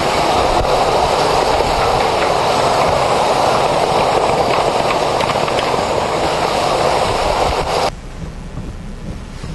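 Hurricane-force wind and wind-driven rain blasting the microphone in a loud, steady rush. About eight seconds in it cuts suddenly to a much quieter wind-and-rain hiss.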